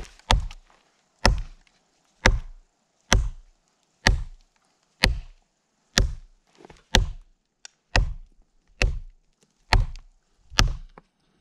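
Heavy Schrade Frontier SCHF37 survival knife, its 7-inch 1095 carbon steel blade chopping into a log. There are about a dozen sharp strikes at roughly one a second, each a solid thud into wood, with a few lighter taps between them.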